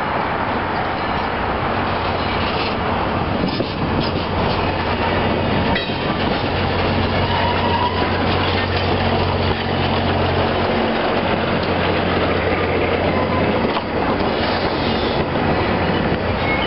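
Railroad passenger cars rolling past close by, their steel wheels clicking over the track, with a steady low hum through the middle.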